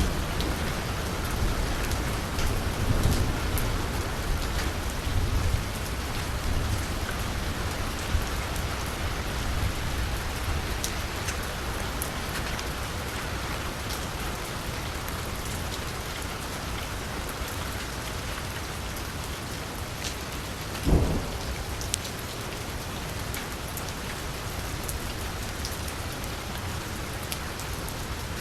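Steady rain falling on a street, with scattered drops ticking. A low rumble fills the first several seconds, and a single dull thump comes about twenty-one seconds in.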